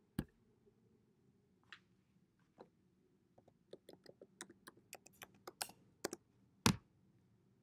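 Irregular light clicks and taps of hands working the recording device up close: a sharp click just after the start, a quick run of small clicks in the middle, and a louder click near the end.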